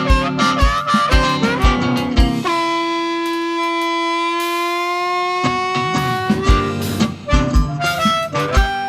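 Blues band playing live in an instrumental break led by harmonica. About two and a half seconds in, the band drops out and the harmonica holds one long note, bending slightly upward, for about three seconds before the drums, bass and guitar come back in.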